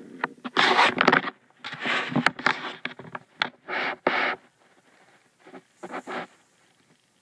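Rabbits scuffling and scrambling: four short bursts of scraping and scratching, with pauses between.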